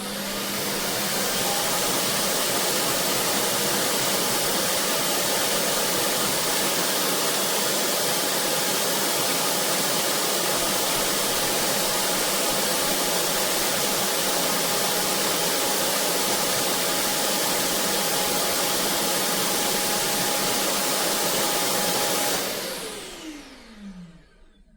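Vacuum motor of the MONSGA robot vacuum's self-emptying station running loud and steady with a whine, sucking out the robot's dustbin. It winds up over the first couple of seconds and near the end spins down with a falling pitch.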